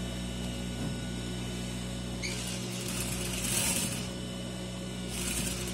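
Industrial sewing machine's motor humming steadily at rest, with two spells of fabric rustling, about two seconds in and near the end, as the collar is shifted under the presser foot.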